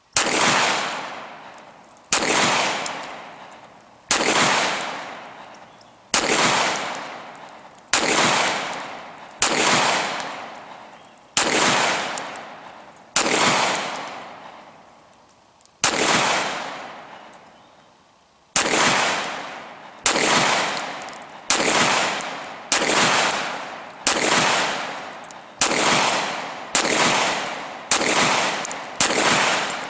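Single 9mm shots from a Glock 17 in a CAA Micro RONI carbine conversion kit, fired at a slow, aimed pace. They come about one every two seconds at first and quicken to about one every 1.3 seconds near the end, each shot with a long echoing tail.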